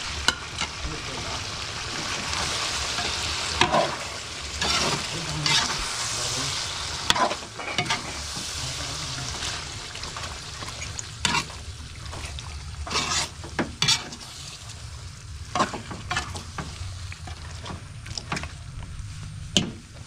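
Chicken puchero being stirred in a sizzling pot as red bell pepper goes in: a utensil scrapes and knocks against the pot again and again over a steady sizzle. The sizzle is strongest in the first half and dies down after about ten seconds.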